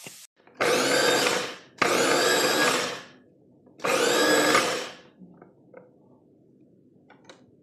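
Electric mini food chopper running in three short pulses of about a second each, chopping tomatoes to a pulp in its glass bowl.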